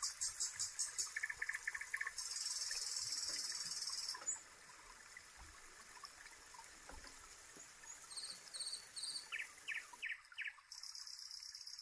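Nature ambience: birds chirping in short repeated notes, with high insect buzzing that comes and goes in stretches of about two seconds.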